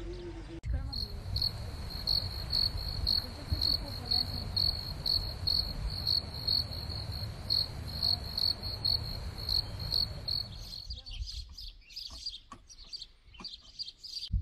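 A cricket chirping in a steady rhythm, about three high chirps a second, over a low rumble. Near the end it stops and gives way to scattered short high chirps.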